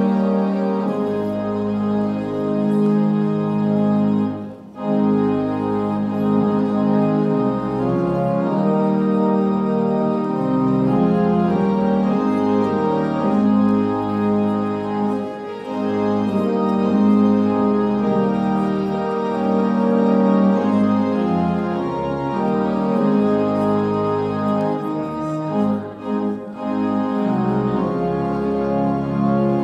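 Organ music: held chords that change every second or two, with two brief breaks between phrases, about four and a half seconds in and near the end.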